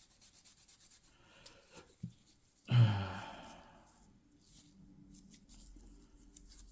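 A man's heavy sigh, voiced at first and trailing off over about a second, about three seconds in.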